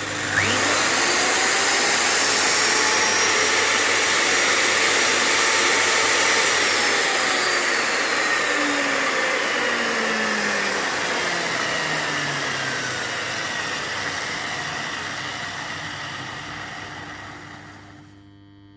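Refina paddle mixer's electric motor spinning up quickly on its new trigger switch, running at full speed with a steady whine for about six seconds, then winding down slowly as it coasts to a stop. Near the end only the buzz of its site transformer is left.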